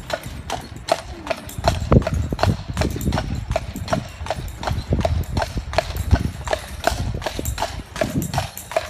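Clydesdale's hooves clip-clopping on a paved road in a quick, even rhythm as it pulls a carriage, with a low rumble underneath.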